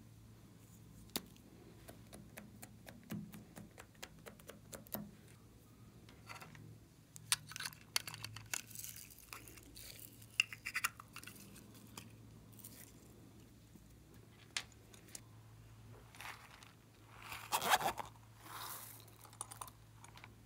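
Small plastic containers handled and opened by hand over a glass baking dish, giving scattered clicks and taps. There are bursts of rustling and pattering as sequins and beads are poured in, the loudest near the end.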